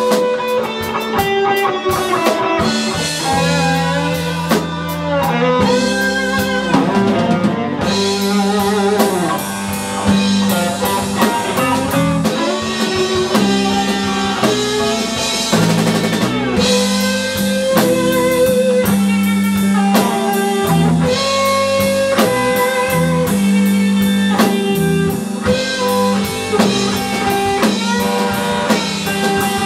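Live band playing: a lead electric guitar from a Stratocaster-style guitar plays sustained, bending melodic lines over rhythm guitar and a drum kit.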